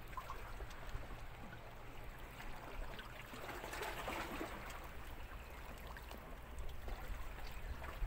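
Small sea waves lapping softly at the rocky shore, swelling a little about four seconds in, over a steady low rumble.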